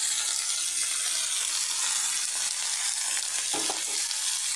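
Boiled ash gourd peel strips sizzling steadily in hot oil as they are tipped into a metal pan.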